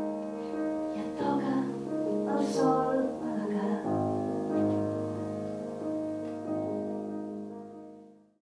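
Slow piano music with a voice singing briefly over it, fading out near the end.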